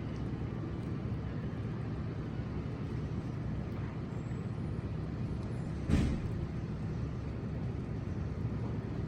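Car driving on a snowy road: a steady low rumble of engine and tyres, with a single thump about six seconds in.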